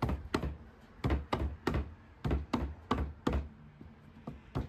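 About a dozen sharp knocks in small quick groups: a cut half-inch plywood seat piece being tapped up into a wooden chair's seat frame until it sits tight and flush.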